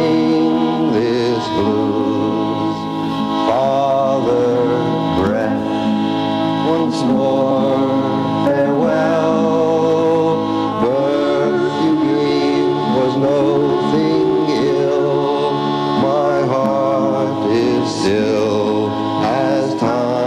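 Music: a single voice chanting in long, wavering notes over a steady held drone from a reed instrument.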